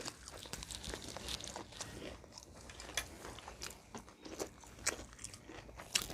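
Close-up eating sounds: wet chewing with scattered sharp crunches and clicks of fried chicken being bitten and chewed.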